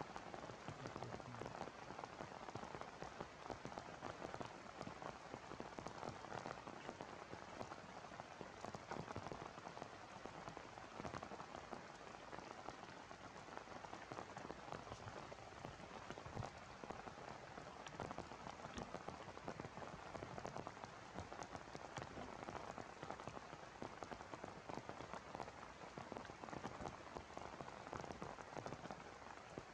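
Steady heavy rain falling, a constant hiss dense with sharp raindrop ticks.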